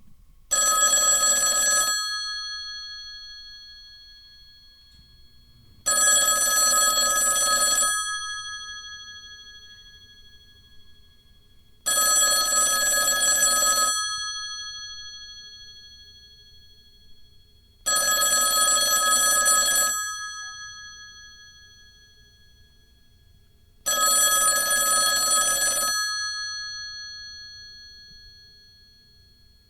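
Telephone ringing: five rings, each about two seconds long, repeating about every six seconds. After each ring a bright tone lingers and fades before the next.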